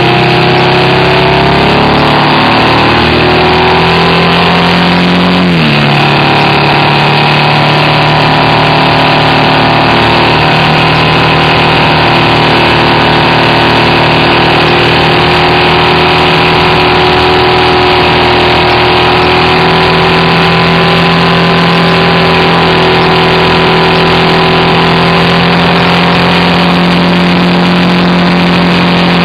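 BMW R1200RT's boxer twin engine running at road speed, picked up by a bike-mounted camera. Its pitch falls over the first few seconds and drops sharply about five and a half seconds in, then holds steady with a slight rise near the end.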